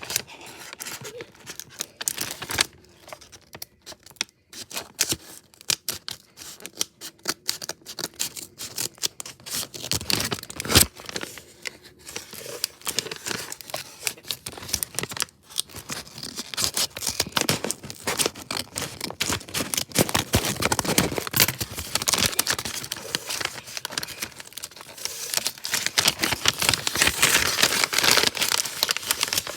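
Window blind being cleaned: dense, irregular scratching and crinkling with many sharp clicks as the slats are rubbed and handled, busier and more continuous in the last third.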